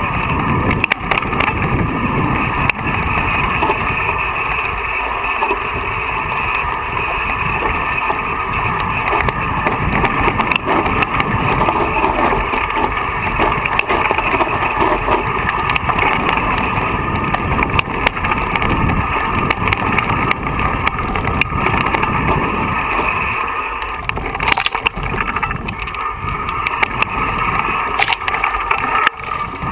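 Mountain bike descending a rocky dirt trail, heard from a camera riding with it: a steady rush of wind over the microphone with the constant rattle and clatter of the bike and its tyres over stones and gravel.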